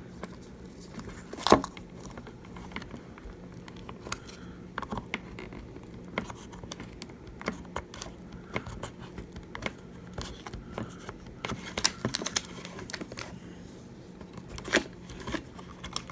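Scattered small clicks, scrapes and taps of a prying tool working at an iPhone 7 Plus battery stuck down with adhesive. A sharper knock comes about a second and a half in.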